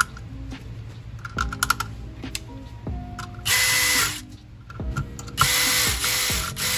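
DeWalt cordless drill/driver driving small 4-40 screws into a 3D-printed plastic blaster frame. The motor runs in a short burst about three and a half seconds in, then again for longer near the end, with a steady whine over the motor noise. Small clicks of plastic parts being handled come before.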